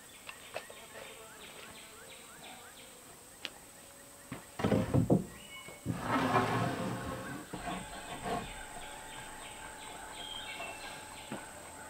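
Wooden scrap-lumber boards being set back down on top of a wooden box: a cluster of knocks and thuds about four to five seconds in, then boards scraping and shifting for a couple of seconds. Birds chirp throughout.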